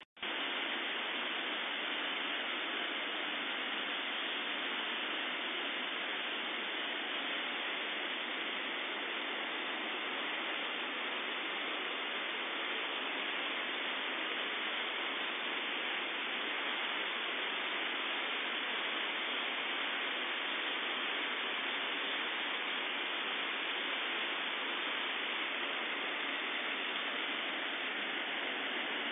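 Flood-swollen Cuyahoga River rushing through its rapids: a steady, unbroken rush of white water that cuts in abruptly at the very start.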